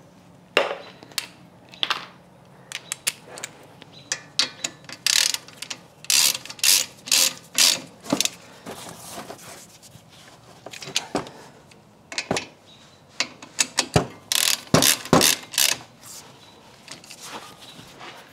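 Hand ratchet wrench clicking in short runs of strokes with pauses between, tightening the caliper bolts on a car's front disc brake.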